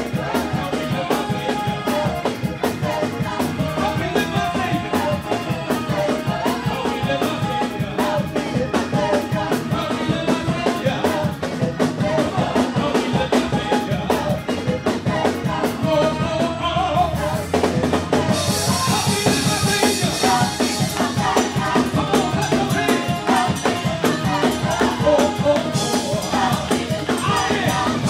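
Gospel vocal group singing with a lead singer and backing vocalists over a band with a drum kit. The sound gets brighter, with more high cymbal-like hiss, about two-thirds of the way in.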